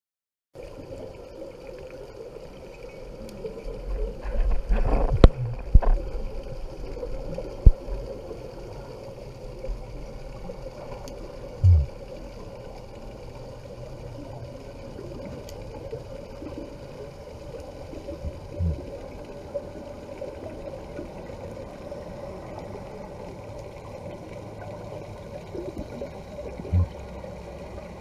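Muffled underwater sound from a freediver's pole-mounted camera: a steady low wash of water, with a louder stretch of churning and a few sharp knocks about four to six seconds in, then brief low thumps every several seconds.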